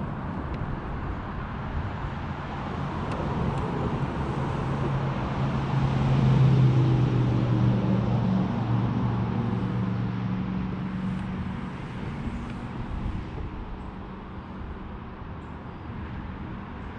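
A low engine drone passing by: it swells to its loudest about six seconds in, then fades away over a steady background hiss.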